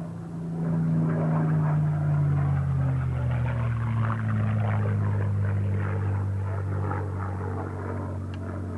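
Piston engine of a WWII-era propeller warplane droning as it flies past, its pitch sliding steadily lower as it passes.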